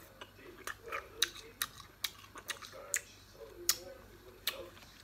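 Someone eating sour raw tamarind, giving sharp, irregular mouth clicks and lip smacks about one or two a second, with faint low murmurs between them.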